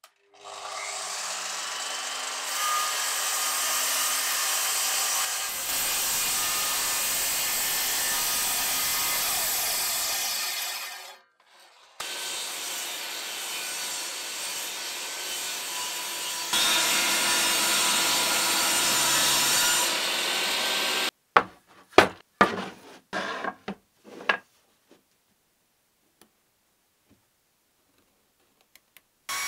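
Evolution sliding mitre saw spinning up and cutting a board for about ten seconds, then a table saw ripping a plank, louder about halfway through. A few sharp knocks follow.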